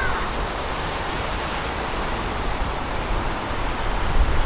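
A steady, even rushing hiss of open-air ambience by a river, with a low rumble of wind on the microphone.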